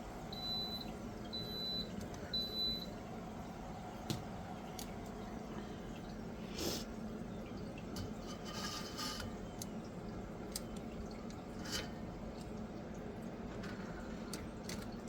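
Blackstone electric pizza oven's control panel beeping three times, evenly about a second apart, over a steady low hum. Scattered light clicks and brief rustling follow.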